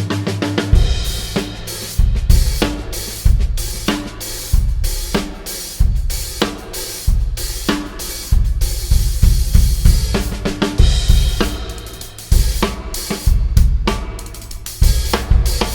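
Drum kit played in a steady groove on snare, bass drum and hi-hat, with Pergamon raw Turkish hand-made cymbals ringing over it. Held low notes underneath change every second or two.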